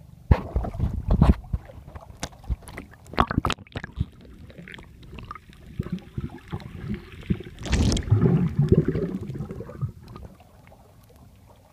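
Seawater splashing and gurgling against the camera's microphone as it goes underwater, with sharp knocks in the first few seconds. Then muffled underwater noise, with a louder jumbled stretch of gurgling from about eight to ten seconds in.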